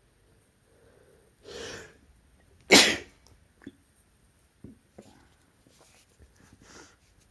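A person with a cold sneezing: a drawn-in breath, then one sharp, loud sneeze just under three seconds in, followed by a few faint clicks and a soft breath.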